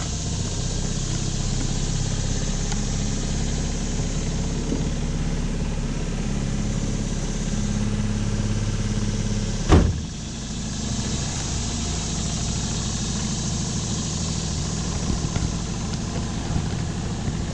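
Tohatsu 9.8 hp four-stroke outboard motor running steadily, with one loud sharp knock a little under ten seconds in.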